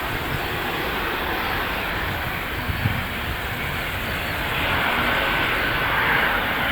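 Antonov An-124 Ruslan's four Progress D-18T turbofan engines running at takeoff power: a loud, steady jet roar that swells about four and a half seconds in, with a faint steady whine rising out of it.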